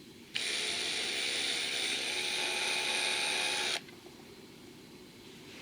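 Small power drill running steadily for about three and a half seconds as it bores out a screw hole in a die-cast metal car body, starting and stopping abruptly.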